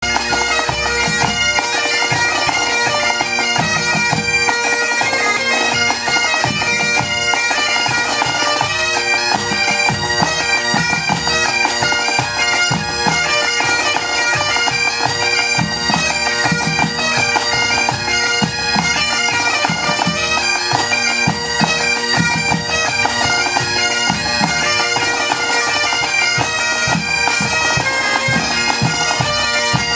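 Pipe band playing a tune: Great Highland bagpipes over their steady drones, with snare, tenor and bass drums keeping the beat.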